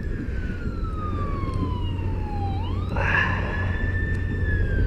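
Emergency-vehicle siren wailing: one tone slides slowly down in pitch, sweeps quickly back up about three seconds in, holds, then begins to fall again. Underneath is a steady low rumble, and a rush of hiss comes in at the upswing.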